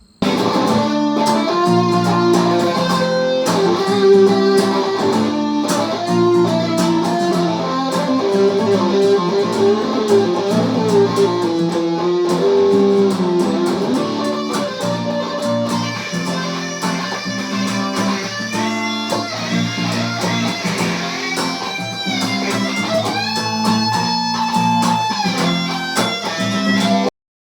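Guitar jam: plucked guitar notes in a melodic line over a repeating chord pattern, with bent, gliding notes in the last few seconds, then cutting off suddenly.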